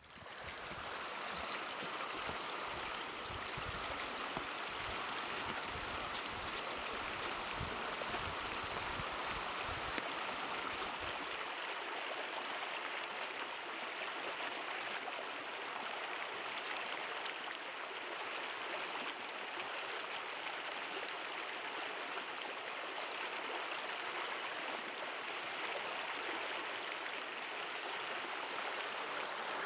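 Shallow rocky stream rushing over stones: a steady, even rush of water that fades in at the start. Low rumbling sits under it for about the first ten seconds.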